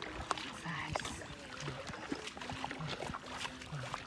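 Hands sloshing and splashing in shallow muddy water while feeling for eels, with scattered wet clicks and squelches.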